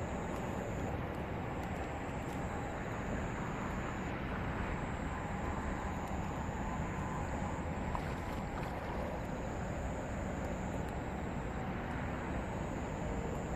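Steady outdoor night ambience by a flowing river: an even, unchanging rushing noise, with a faint high steady tone that breaks off and resumes every second or two.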